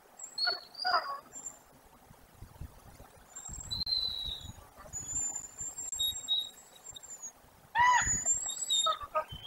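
Wolves play-wrestling, giving short high yelping whimpers about half a second in and again, louder, about eight seconds in. Thin high whistled squeals come in between over low scuffling.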